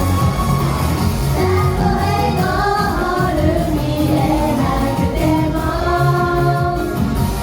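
Live J-pop idol song: several female voices singing together over a loud backing track with a heavy beat, as heard in the concert hall.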